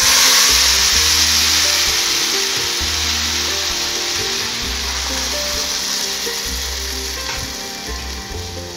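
Hot pan of oil-fried rice and lentils sizzling loudly as warm water is poured in; the hiss starts suddenly and slowly dies down.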